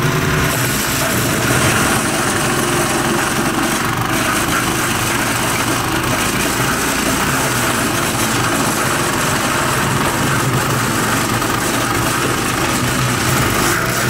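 Kohler petrol engine of a 6-inch drum wood chipper running steadily at working speed while branches are fed in and chipped. The sound is a continuous, even engine note with the drum's chipping mixed in.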